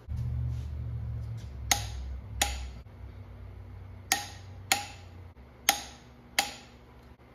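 Six sharp metallic clicks of hand tools on metal at uneven intervals, each with a brief ring, over a low hum that stops a little past halfway.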